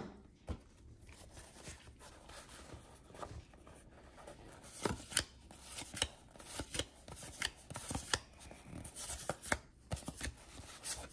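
1991-92 Fleer basketball cards being flipped and slid off a stack one at a time: faint, scattered light snaps and clicks of cardboard that come closer together in the second half.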